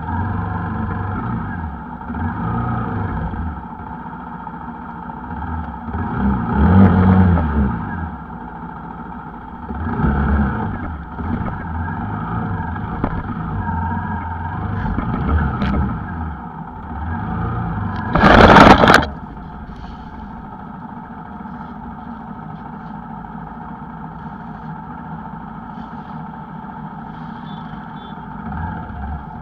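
TVS Apache RTR 160 motorcycle's single-cylinder engine revving up and down repeatedly while riding over rough dirt, with a loud rushing burst lasting about a second a little past halfway. Afterwards the engine runs lower and steadier.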